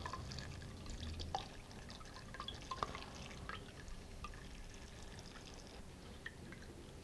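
Blueberry vinegar pouring in a thin stream from a glass jar through cheesecloth in a sieve. It makes a faint trickle, with scattered small drips and ticks as the steeped berries drop onto the cloth.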